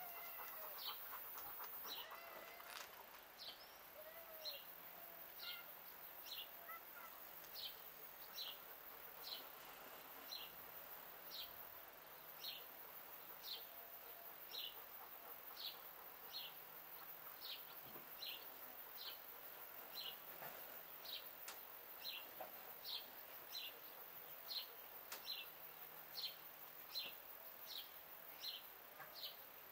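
A songbird repeating one short, high, falling call over and over at an even pace, nearly two calls a second.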